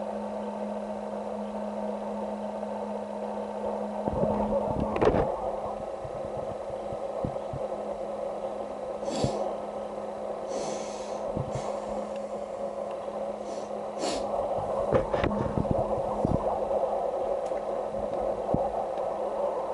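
Steady low hum with a drone above it, broken by scattered light clicks and a few breathy puffs and rustles close to the microphone.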